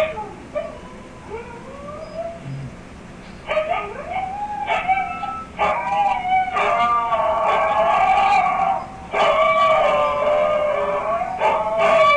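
Two huskies howling, long wavering overlapping calls, faint at first and much louder from about three and a half seconds in.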